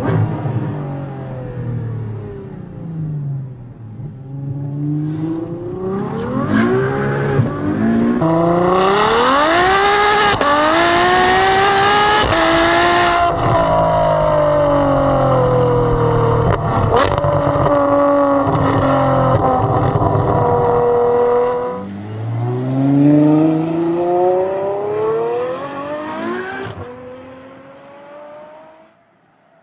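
Ferrari F12 Berlinetta's V12 engine accelerating hard through the gears, its pitch climbing in steps with each upshift, then holding a steady, slowly falling note at speed. Later it revs up again and then fades away near the end.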